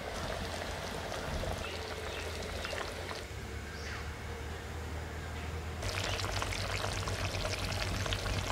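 Curry gravy of radish, potato and tomato boiling in an open pan: a steady bubbling of liquid that dips a little for a couple of seconds midway.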